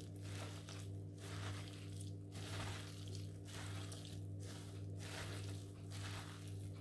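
Soft, faint squelching of a hand kneading soaked soya chunks with chopped tomato and spice paste in a glass bowl, in repeated irregular strokes. A steady low hum runs underneath.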